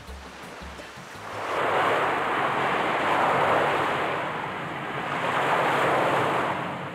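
Surf breaking and washing up a sand beach: two swells of wave noise, the first building about a second in, the second cresting near the end.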